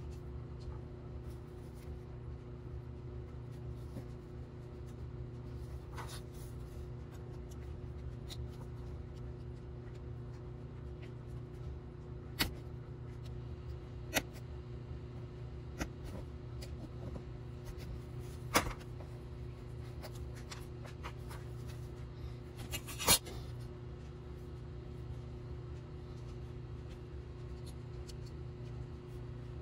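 Snap-off utility knife blade scoring thin styrene plastic sheet: a soft, repeated scratching, broken by a few sharp clicks, the loudest about three quarters of the way through. A steady low hum runs underneath.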